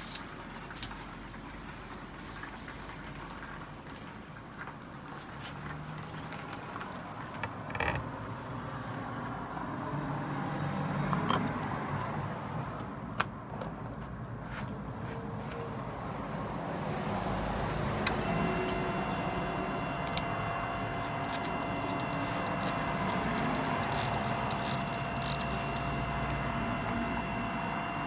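Mechanical handling noise with scattered clicks and knocks from a DIY record cleaning machine, then about two-thirds of the way in a small motor starts and runs with a steady whine.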